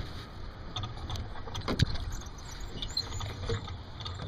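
Sunfish sailboat under sail: a steady low rumble of wind and water, with two sharp knocks, one at the start and one just under two seconds in, and a few lighter clicks.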